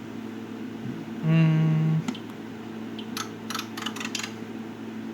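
Steady hum of the HP 54542A oscilloscope's cooling fan and electronics. A short, loud, flat tone sounds for under a second about a second in, and a quick run of clicks follows around three to four seconds in, typical of front-panel keys being pressed.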